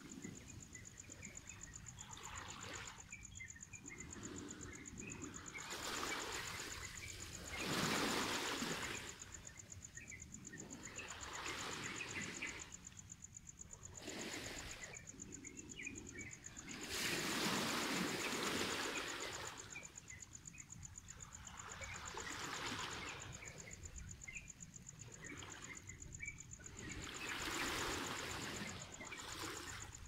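Small waves washing in over a shore of rounded stones and drawing back, swelling and fading every few seconds; the biggest swells come about 8, 18 and 28 seconds in. A steady high-pitched insect trill runs underneath.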